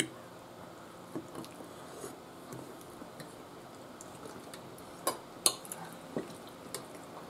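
Knives and forks clicking and scraping on ceramic dinner plates as food is cut, with soft chewing between; the sharpest clinks come about five seconds in.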